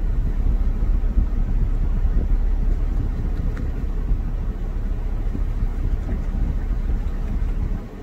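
Steady low outdoor rumble with no clear calls from the geese or ducks.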